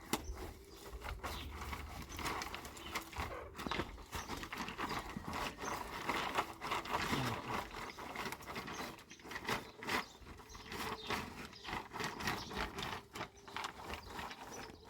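Irregular knocks and taps, many of them in quick, uneven succession.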